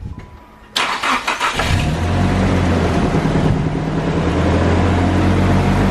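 Nissan Silvia S15's turbocharged SR20DET four-cylinder cranking on the starter for under a second, then catching and settling into a steady idle. This is the first start after the intercooler was fitted.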